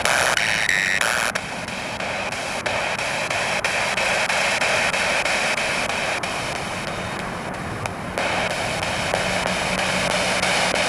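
Spirit box sweeping through radio stations: a steady hiss of static broken by rapid, evenly spaced clicks as it steps from station to station, with brief snatches of broadcast sound near the start.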